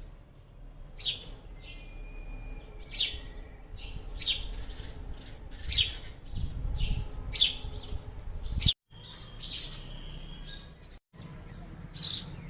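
House sparrow chirping: loud, short, falling chirps about once every second or so, with fainter chirps between them and a low rumble underneath. Twice the sound cuts out abruptly for a moment.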